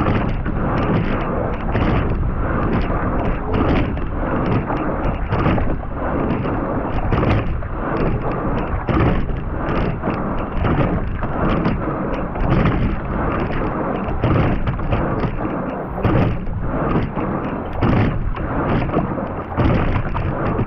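Racing quad scull under way at race pace: water rushing along the hull and wind buffeting the rigger-mounted microphone, with recurring knocks from the oars and riggers on each stroke.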